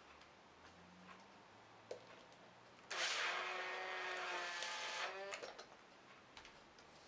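A part of a vintage Hoover upright vacuum cleaner being pushed back into place, a squeaky scrape of about two seconds starting about three seconds in, with light clicks of handling around it.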